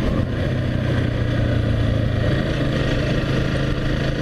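Single-cylinder engine of a 2011 Honda CBR250R, fitted with a CBR250RR exhaust, running steadily at road speed with wind rush over the rider. The engine note shifts slightly about halfway through.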